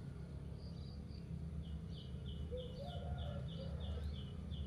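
A short, high chirp repeated about three times a second, starting about a second and a half in, over a low steady rumble of outdoor background noise.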